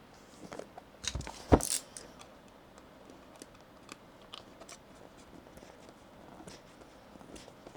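Scattered light clicks and taps from handling a small aluminium mechanical numpad, with a louder knock about a second and a half in.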